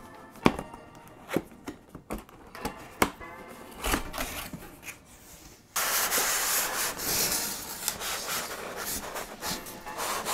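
Cardboard packaging of a boxed statue being handled: a few sharp knocks and taps on the box, then from about halfway a sudden, steady rubbing and scraping of cardboard as the packaging is worked open.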